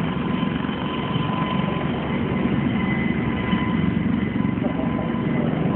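A steady engine drone with a thin, high, held whine.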